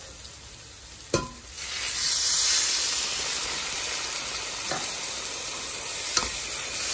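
Onion-tomato curry masala sizzling in a hot pan; a sharp knock about a second in, then half a cup of water hits the hot masala and the sizzle turns to a louder, steady hiss. Two light clinks of the stirring spoon follow near the end.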